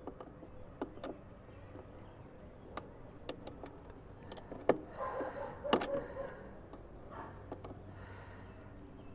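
Scattered clicks and knocks of hands fitting wires and terminals inside the plastic battery compartment of a Neuton electric lawn mower, with two sharper clicks a little past the middle.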